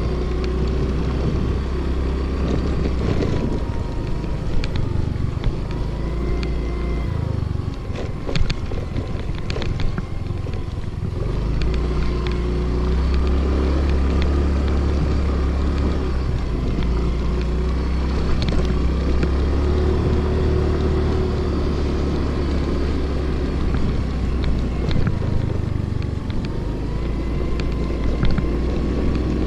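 Scooter engine running while riding over a rough sand track, its pitch rising and falling with the throttle. A few knocks and rattles come about eight to ten seconds in.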